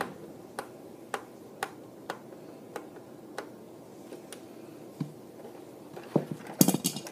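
Small screwdriver turning the screw of a Nerf Stryfe blaster's plastic battery cover, clicking about twice a second. Near the end come several louder knocks and rattles of plastic being handled.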